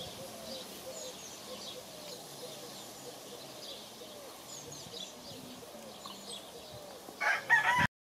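Chickens clucking softly over and over, with small birds chirping high above them; near the end a rooster breaks into a loud crow that is cut off abruptly after under a second.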